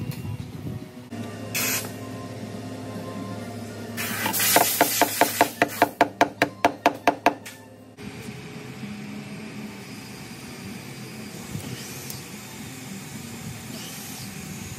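Background music with steady held tones, broken midway by a hiss and then a quick, even run of about a dozen sharp knocks, roughly four a second; after a cut, a steadier noisy bed follows.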